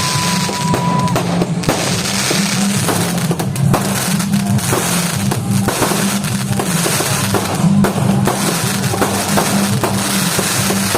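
Fireworks going off in a rapid string of sharp bangs and crackles, over loud music with a heavy bass line.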